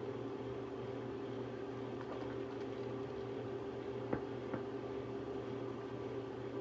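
Steady mechanical hum with a few pitched tones, as from a small motor or fan, with two faint clicks about four seconds in.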